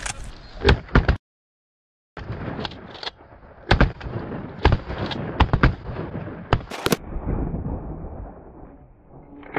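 Shotgun blasts fired at flying Canada geese: two quick shots about a second in, then, after a short break, a string of about half a dozen more shots in quick succession.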